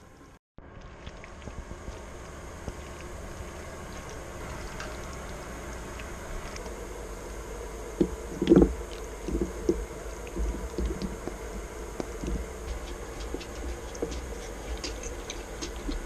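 Popcorn cooking in a saucepan: a steady hiss of the heating pan, then irregular pops of kernels bursting from about halfway on.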